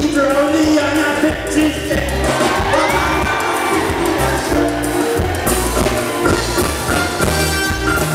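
Live calypso performance: a male calypsonian singing into a microphone over a live band with bass guitar.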